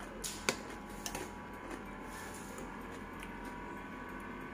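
A metal fork and spoon click a few times against a bowl in the first second or so as noodles are twirled. A steady faint hum follows.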